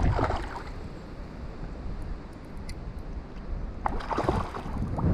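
Wind rumbling on the microphone, with a few brief splashy bursts of water from a hooked trout being played in close.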